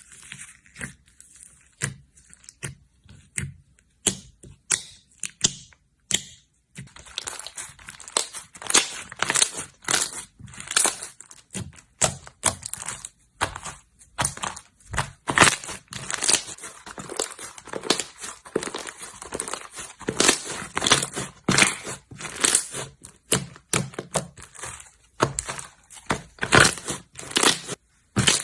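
Slime being squished and pressed by hand, giving a run of crackling clicks and pops: scattered at first, then thick and continuous from about seven seconds in.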